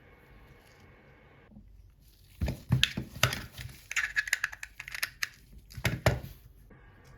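Handling noise: a run of sharp clicks and crinkling that starts about two and a half seconds in and stops after about four seconds.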